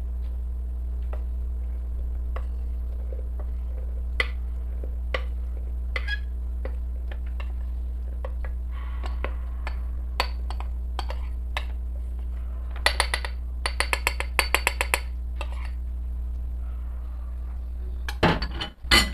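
A spoon clinking and tapping against a small bowl and a blender jar as the last of the tapioca starch is scraped in: scattered single clicks, a quick run of taps about two-thirds of the way in to knock the starch loose, and a louder knock near the end. A steady low hum runs underneath.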